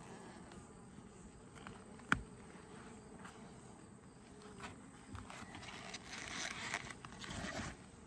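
Honeybees buzzing faintly around an open hive. There is a single sharp click about two seconds in, and some rustling near the end.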